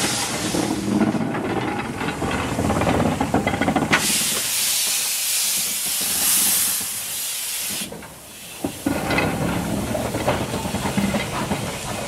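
Small 0-4-0 saddle tank steam locomotive working past, with exhaust chuffs and knocks from the motion. A loud steady hiss of steam from the open cylinder drain cocks runs from about four to eight seconds in.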